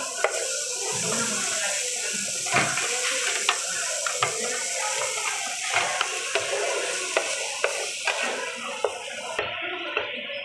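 Pancit noodles sizzling in a hot nonstick pan while being stir-fried, with frequent sharp clicks and scrapes of the utensils against the pan. The sizzling cuts off suddenly about nine seconds in.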